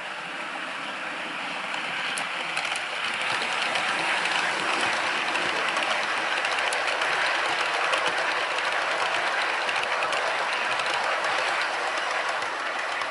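OO-gauge model train, a Class 37 locomotive with a rake of Mark 1 coaches, running past on model track: a steady rolling rumble of wheels on the rails with light clicks over the rail joints. It grows louder over the first few seconds as the coaches pass close by, then eases a little near the end.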